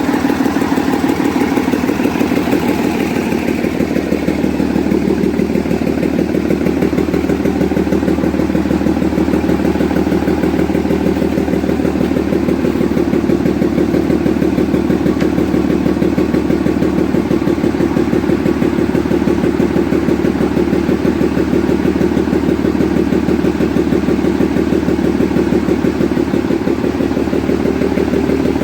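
Scania 111's six-cylinder diesel engine running steadily, its timing gear train uncovered, still a little out of injection timing.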